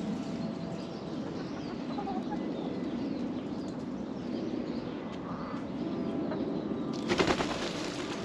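Chicken wings flapping in a quick flurry of beats about seven seconds in as a hen flies up. Before that there is only a steady low background noise.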